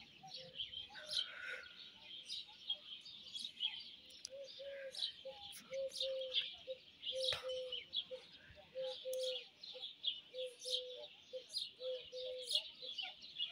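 Small songbirds chirping and twittering in quick, overlapping calls. From about four seconds in, a lower bird call repeats over and over beneath them.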